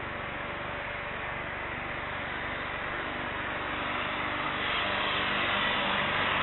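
Airbus A321neo's Pratt & Whitney geared turbofan engines running at taxi power, a steady rushing engine noise with a faint hum under it that grows louder about four seconds in as the jet comes nearer.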